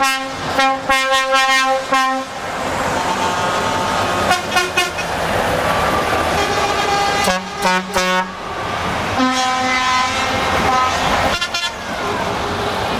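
Trucks passing in a convoy with their engines running, sounding air horns in repeated blasts. There is a quick run of short toots in the first two seconds, more short blasts a few times after that at different pitches, and a longer horn note about nine seconds in.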